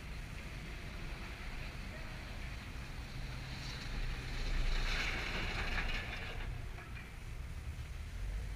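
Wind rumbling on an action camera's microphone outdoors. A louder hiss swells and fades between about four and six and a half seconds in.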